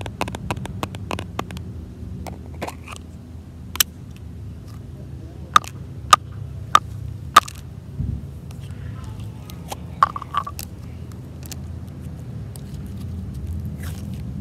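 Sharp plastic clicks and small pops from a plastic slime tub and the slime as they are handled, a few loud ones close together in the middle, over a steady low rumble.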